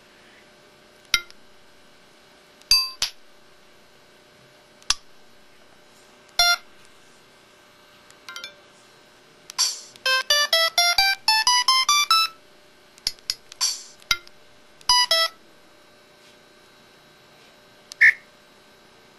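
Samsung SCH-E120 mobile phone playing its built-in effect sounds one after another: short electronic chimes and beeps a second or two apart, with a quick run of rising notes about ten seconds in.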